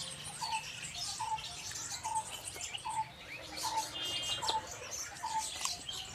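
Birds calling: one bird repeats a short note a little more than once a second, over the scattered higher chirping of other birds.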